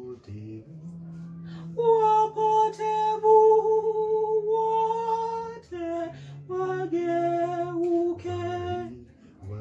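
Voices singing a slow Swahili hymn in several parts. A long chord is held from about two seconds in for nearly four seconds, followed by shorter sung notes.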